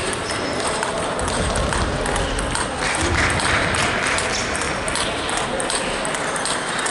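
Table tennis rally: the ball clicking sharply off the rackets and the table in quick succession, with ball clicks from neighbouring tables among the hall's general noise.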